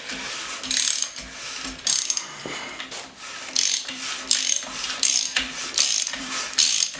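Ratchet wrench clicking in a series of strokes that come quicker in the second half, turning an LS 5.3 V8 over by hand. The engine is being rotated so its piston rings scrub the rusted, water-damaged cylinder walls.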